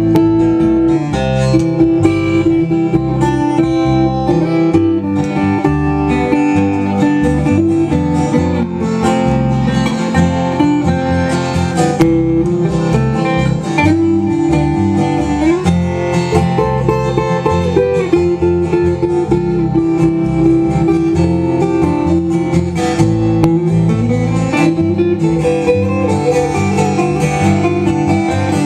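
Instrumental break of a country song played live: acoustic guitars strumming and an upright bass, with a guitar picking a lead melody that slides up into a few notes.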